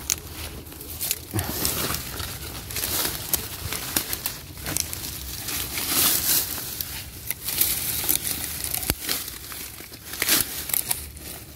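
Dry grass, dead leaves and vines rustling and crackling in an irregular run of rustles as a hand pushes through and parts the undergrowth.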